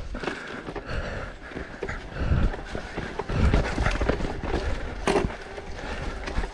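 Mountain bike riding down a rocky, muddy trail: tyres rumbling over stones and ruts while the bike rattles and knocks, with a sharp knock about five seconds in.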